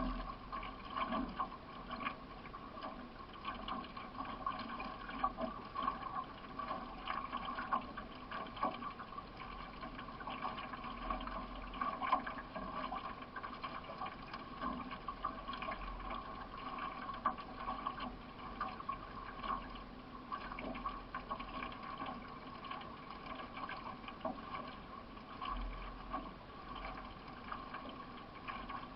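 Paddle strokes and water splashing and trickling around a one-person racing canoe under way, with many small irregular splashes. A few brief low rumbles of wind on the microphone.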